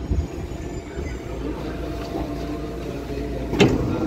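Steady low rumble inside a Tokyo Metro 6000 series electric train car at the platform. Its sliding passenger doors open with a loud sharp knock near the end.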